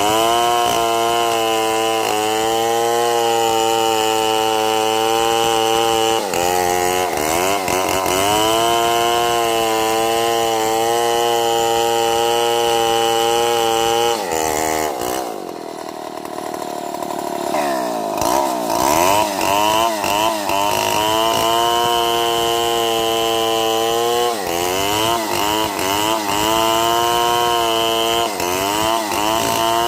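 Two-stroke chainsaw running at high revs, its pitch sagging and recovering as the chain bites into the wood. About halfway through the engine eases off to a lower, quieter note for a few seconds, then revs back up and keeps cutting with a wavering pitch.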